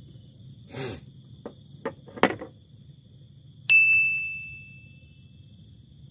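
A few light knocks and taps. Then a single bright metallic ding, the loudest sound, that rings and fades over about a second.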